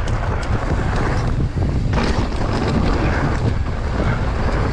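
Steady wind rush buffeting the microphone of a mountain biker riding fast downhill, with the bike's tyres rolling over loose gravel and rock and small ticks and rattles from the bike.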